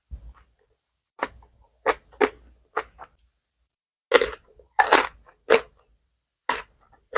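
Close-miked chewing of a mouthful of jajangmyeon with fried squid and kimchi: a run of separate wet, crunchy bites at an uneven pace, with the louder crunches in the second half.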